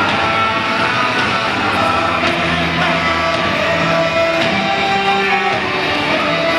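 Rock music with guitar and singing playing over the arena sound system.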